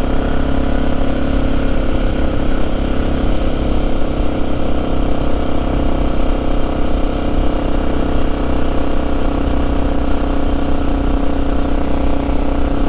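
Motorcycle engine running at a steady, unchanging speed while riding, heard from the rider's seat.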